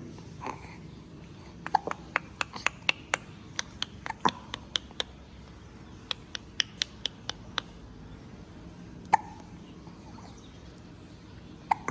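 Baby hiccuping, about four short hiccups a few seconds apart. In the first half, between them, comes a quick run of small sharp clicks.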